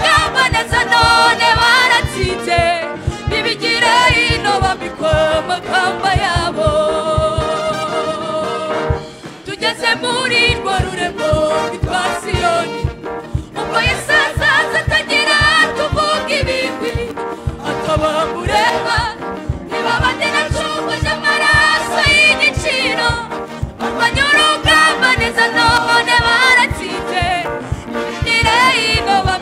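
Gospel song: a singing voice over a backing track with a steady beat.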